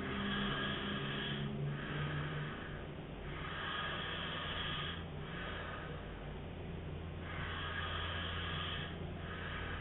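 A man snoring in his sleep: raspy breaths in and out repeating about every three to four seconds, over a steady low hum.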